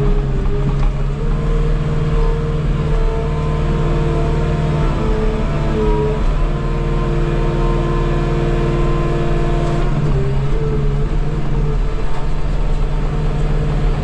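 Skid steer's diesel engine running steadily under load, with a whining tone above it that steps up and down in pitch a few times as the hydraulics are worked.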